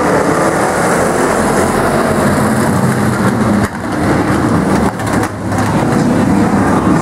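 Engines of a pack of demo race cars and trucks running at speed around an oval track: a loud, steady mix of many motors at once, dipping briefly twice in the middle.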